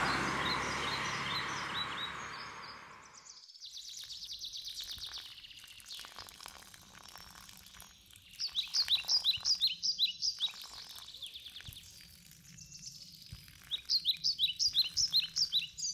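A car driving off, its engine and road noise fading over the first three seconds. Then a songbird sings two long phrases of rapid repeated high chirps, with fainter chirping between them.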